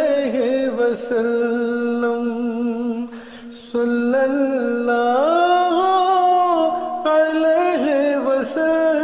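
A voice singing a devotional nazm, holding long notes that slide between pitches, with a short pause about three seconds in and a rise in pitch around five seconds.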